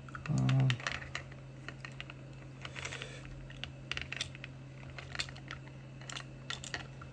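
Irregular small clicks and taps of a screwdriver and plastic parts being handled while screws are worked out of a speaker housing. A steady low hum runs underneath.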